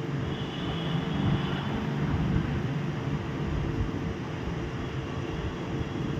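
Steady low rumble and hum of background noise, with a faint high tone for about a second and a half near the start and no distinct knocks or events.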